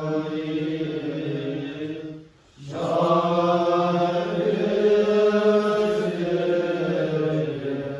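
Buddhist monks chanting the Vinaya dedication prayer for the meal's sponsors: a slow recitation in long, held notes at a low, steady pitch. It breaks off briefly for a breath about two and a half seconds in, then resumes.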